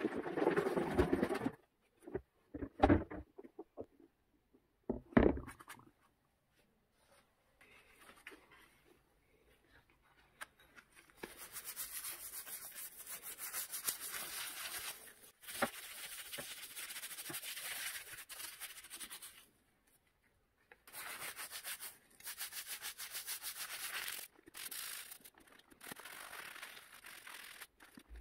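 A stiff brush scrubbing a clogged Audi A4 1.9 TDI EGR valve in a bowl of foamy cleaning solution, in long bouts of fast, hissy strokes that set in about a third of the way through. It follows a brief slosh of liquid stirred by hand at the start and a couple of knocks.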